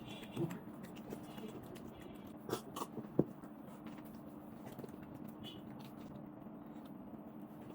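Close-miked eating of khichuri with beef: soft chewing and mouth sounds, with a few sharp clicks about half a second, two and a half and three seconds in, over a steady low hum.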